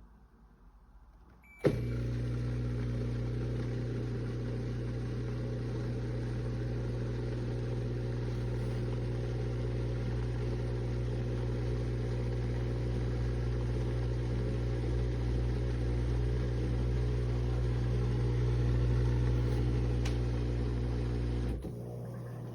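Countertop mini dishwasher's pump switching on with a click and running with a steady electric hum and a spray-like hiss, then cutting out near the end, leaving a quieter hum.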